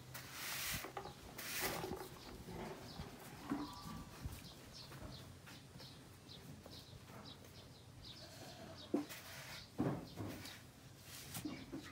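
Faint farmyard ambience with scattered short animal calls, and two sharp knocks about three-quarters of the way through.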